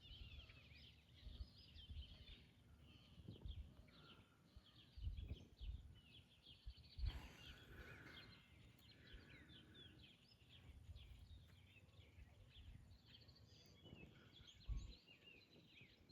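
Faint chorus of many birds chirping, with occasional low thumps.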